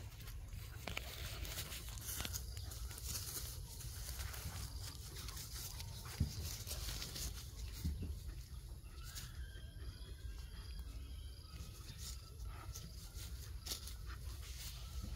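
Two puppies play-fighting on grass: scuffling and rustling over a steady low rumble, with one sharp knock about six seconds in.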